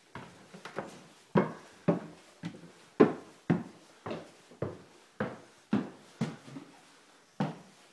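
Footsteps on wooden stairs, a steady run of thuds at about two a second, the heaviest around the middle.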